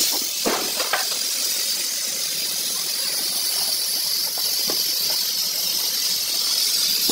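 Steady hiss of compressed air from a tyre-shop air line feeding a pneumatic tool, with a few soft knocks from the tyre being handled, twice in the first second and once more later.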